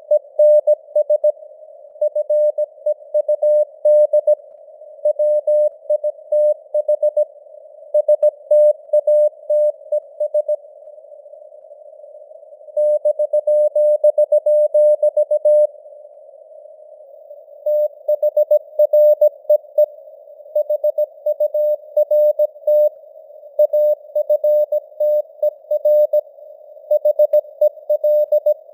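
Morse code (CW) keyed at 17 words per minute: a single tone near 600 Hz sent in dots and dashes over a narrow band of hiss, simulated radio noise. It pauses twice near the middle, for about two seconds each time.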